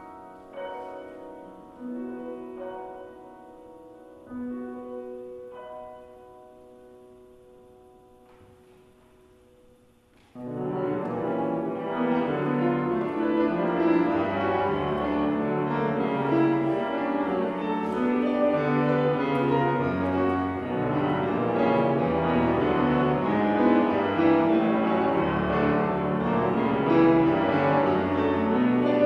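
Solo grand piano: a few soft notes ring and die away over the first ten seconds, then, about ten seconds in, a loud, fast, dense passage begins and carries on.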